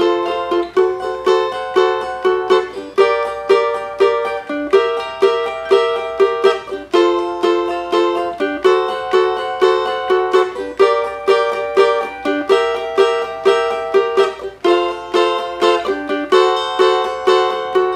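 Cavaquinho strummed in a simple samba rhythm of quick strokes, cycling through the F, D7, Gm and C7 chords of the 'quadradinho de Fá' progression, with half a strum pattern on each chord so the chord changes about once a second.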